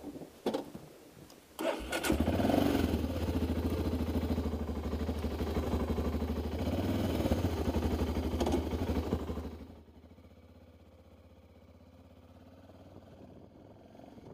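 Motorcycle engine being started: a few clicks of the starter, then the engine catches about two seconds in and idles steadily. About ten seconds in, the engine sound drops away sharply, leaving a faint low hum.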